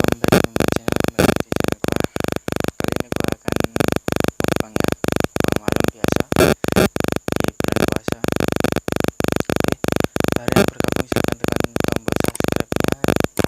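Stuttering intro music: a dense, noisy track chopped on and off in an even rhythm, about four to five times a second.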